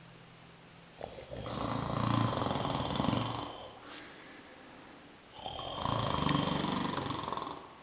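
A person imitating a wolf's snoring: two long snores, each about two and a half seconds, the second starting about five seconds in.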